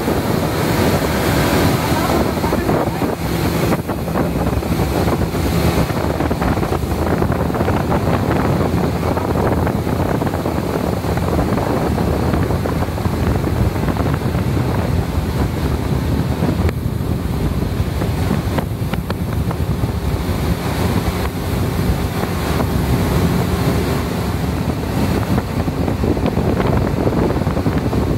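Speedboat under way: a steady engine drone mixed with water rushing past the hull and wind buffeting the microphone.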